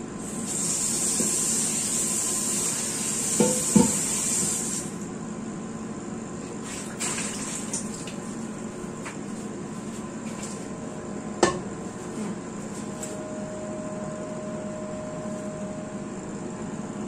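Water rushing and hissing for about four seconds as a wok is handled at the sink. Near the end of the rush the metal wok clanks twice. A few light clicks follow, then one sharp knock, over a steady low kitchen hum.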